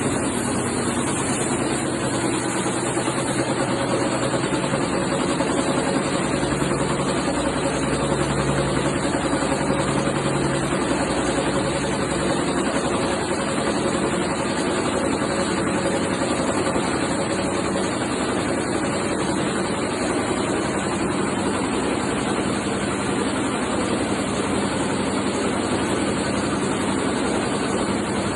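D-type rotary tablet press running, a steady, dense mechanical noise with a low hum underneath and no change in pace.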